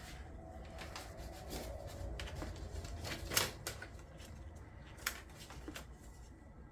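Small scattered clicks and taps of hand work with a soldering iron and solder wick at a circuit board, over a low hum; the sharpest click comes about three and a half seconds in, another about five seconds in.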